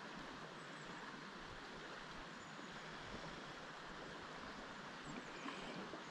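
Faint, steady rush of river water flowing.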